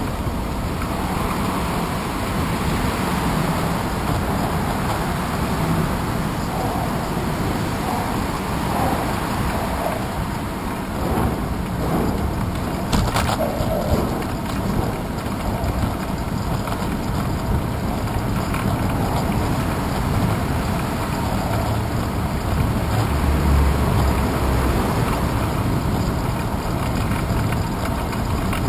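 Steady wind and rolling noise from a moving bicycle, picked up by a handlebar-mounted action camera, with one sharp click about halfway through.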